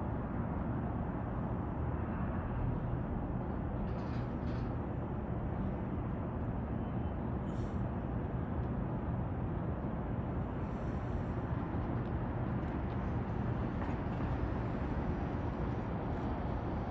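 Steady low rumble of outdoor city background noise, such as distant traffic, with a few faint ticks.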